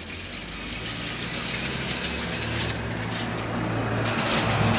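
Battery-powered Plarail toy train running on plastic track: a steady motor-and-gear hum that slowly grows louder, with a couple of light clicks.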